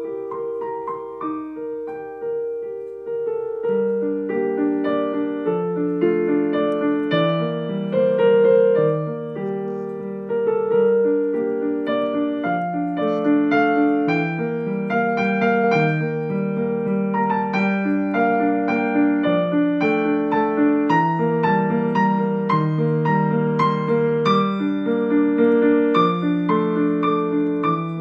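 Yamaha digital piano played with both hands: a steady, unbroken flow of notes, with a lower part joining about four seconds in.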